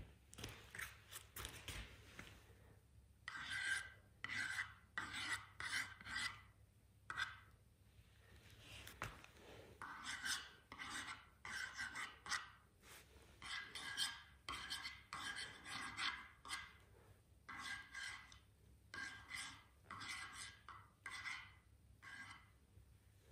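Paint squirting from a plastic squeeze bottle with a long nozzle, in a long run of short sputtering bursts, roughly one to two a second, with a brief pause partway through.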